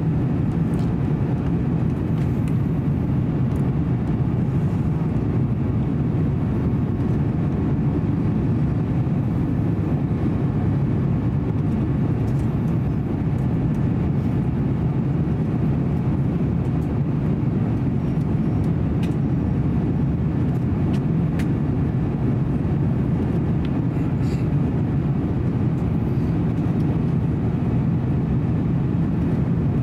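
Steady low drone inside the cabin of an Airbus A350-900 descending on approach: its Rolls-Royce Trent XWB engines and the airflow past the fuselage, heard from a window seat. A few faint clicks come through in the second half.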